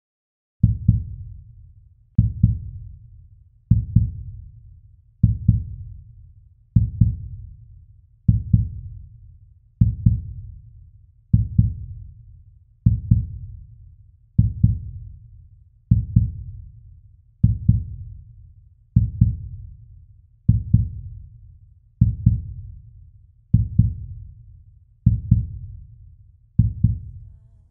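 Slow heartbeat sound effect: deep double thumps repeating about every second and a half, each fading out before the next.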